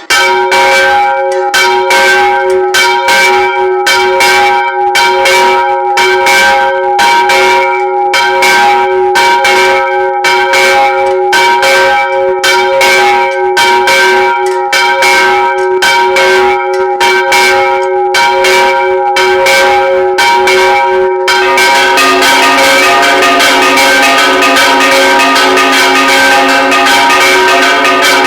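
Church bells ringing loud and fast, about two strikes a second. About 21 seconds in, a lower bell joins and the strokes merge into a dense, continuous peal.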